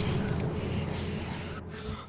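Low rumbling noise that slowly fades away.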